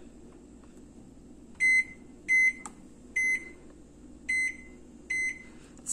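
Consul microwave oven's keypad beeping five times, one short beep per press of the power button, as the power level is stepped down from 100% toward 50%.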